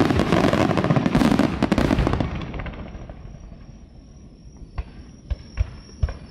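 Fireworks display: a dense barrage of shells bursting and crackling that dies away over about two seconds, followed by a few separate bangs near the end.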